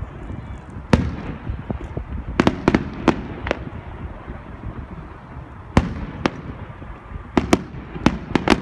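Fireworks bursting: about a dozen sharp bangs at irregular intervals, some in quick clusters of two or three, over a steady low background noise.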